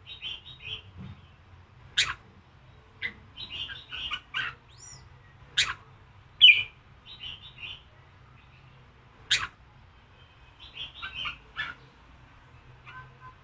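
Red-whiskered bulbul singing a strong 'giọng kình' song: short warbled phrases broken every few seconds by sharp, loud notes, the loudest about six and a half seconds in.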